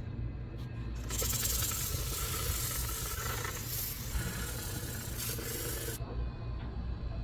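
Abrasive rubbing, like sanding or filing, on a diecast model car's body: a dense scratchy hiss that starts about a second in and stops abruptly about six seconds in.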